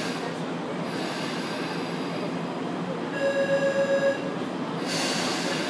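Tokyu 8500 series electric train running slowly through an underground station, a steady rumble. About halfway, a pulsing electronic beep lasts about a second, and a burst of hiss comes near the end.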